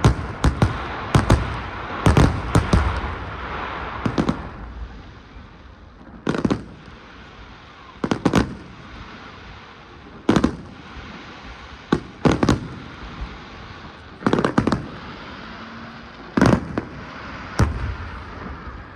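Fireworks bursting: a quick run of bangs in the first four seconds, then single bangs about every two seconds, a few in close pairs.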